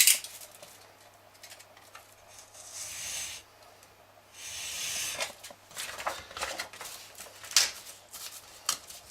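Scissors cutting a small piece of P600 sandpaper: two longer rasping cuts a few seconds in, then several short snips and clicks.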